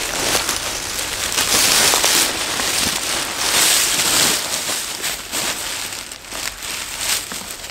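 Dry leaf litter crunching and rustling under a person crawling on hands and knees, loudest in two swells about a second and a half and four seconds in, then softer.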